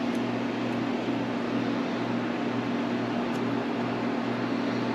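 Steady electrical hum over an even hiss, as from a fan or similar appliance running in the room, with a few faint small clicks.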